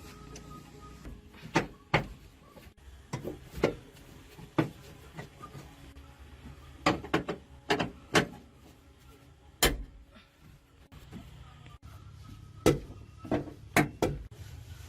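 About fifteen sharp, unevenly spaced knocks and clanks, some in quick pairs, over a low steady background hum; the sound of metal parts and hand tools being handled and struck during repair work.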